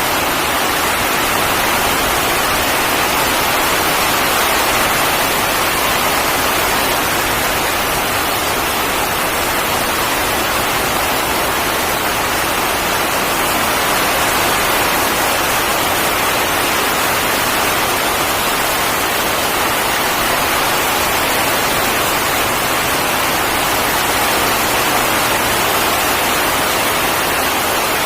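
Heavy tropical rain pouring down steadily in a loud, unbroken hiss.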